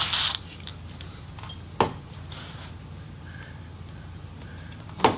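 A short rush as the opened MacBook Pro is shifted on the tabletop, then a few sharp small clicks, one just under two seconds in and another near the end, as a pointed tool flips up the ribbon-cable connector retainers on the logic board.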